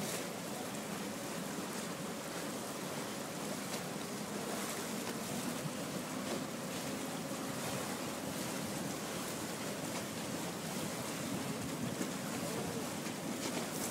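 Inland motor cargo barge coming alongside: a steady low engine hum under an even wash of water and wind noise.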